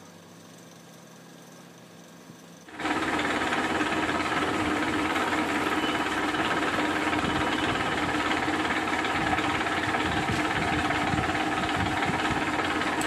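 Milling machine spindle running with a steady whine of several tones, starting suddenly about three seconds in, while the drill bores a hole in the clamped workpiece.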